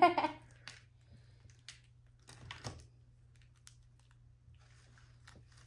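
Faint, scattered clicks and small crackles of people eating fried chicken at the table, irregular and well apart.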